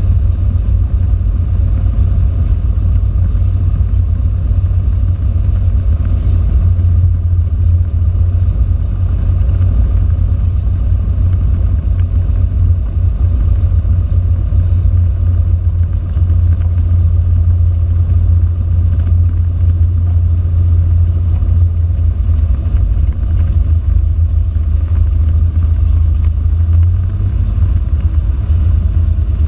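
Cessna 172's piston engine and propeller heard from inside the cabin, a loud, steady low drone while the aircraft rolls along the ground.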